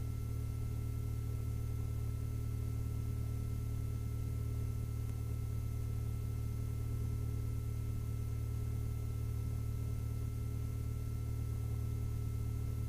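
Lycoming IO-360 four-cylinder fuel-injected engine of a 1967 Mooney M-20F idling steadily during warm-up before the run-up. It is a low, even drone with a few faint steady tones above it.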